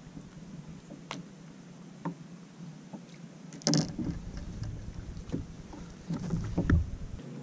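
Steady low rumble of wind and water around a bass boat, with a few sharp knocks and one louder splashy burst about halfway through as a largemouth bass is unhooked and handled on deck. Near the end come more splashy noises as the fish is lowered back to the water.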